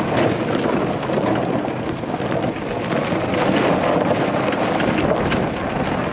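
EZ GO 36-volt electric golf cart driving over gravel: steady wind noise on the microphone, with the tyres crunching and small clicks and rattles throughout.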